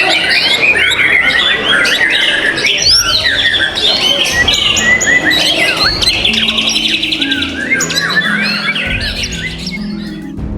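White-rumped shamas singing in contest, with many overlapping whistles and chirps and a fast trill about six seconds in. Background music with low held notes comes in near the end.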